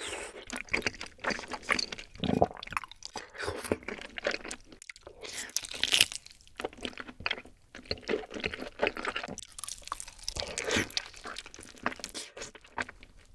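Close-miked eating sounds: sticky, wet chewing of rosé tteokbokki rice cakes and noodles in creamy sauce, and biting into a glazed roasted chicken leg. There are many irregular small clicks and crackles, with the loudest bite about six seconds in.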